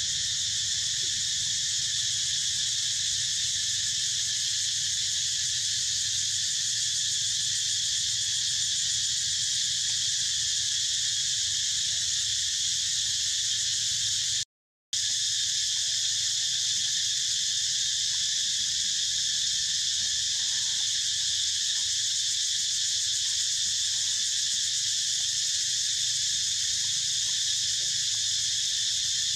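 Steady, dense chorus of insects, a continuous high-pitched shrill with no pauses or rhythm. It cuts out for a moment about halfway through and then carries on unchanged.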